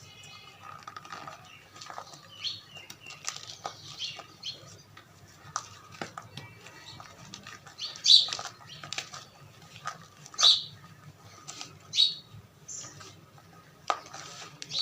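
Gym chalk mixed with cornstarch being worked, giving irregular soft squeaky crunches, with four louder crunches in the second half.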